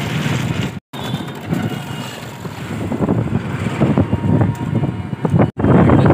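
Ride noise from inside a moving toto (electric rickshaw): wind buffeting the microphone, with road rumble and rattling. Twice it cuts off abruptly, about a second in and near the end.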